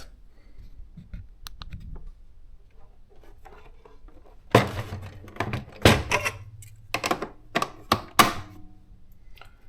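Plastic cover and body of a Casio CW-60 thermal typewriter being handled: faint rustling at first, then about eight sharp clicks and knocks in quick succession from about halfway through.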